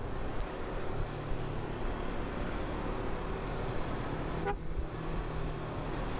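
Steady riding noise from a Kawasaki Versys 250 motorcycle on the move in city traffic: engine and wind on the microphone. About four and a half seconds in comes a short beep-like blip.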